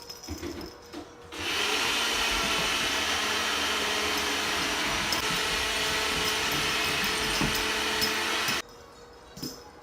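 Steady whirring noise of an electric appliance motor, starting suddenly about a second in and cutting off about seven seconds later.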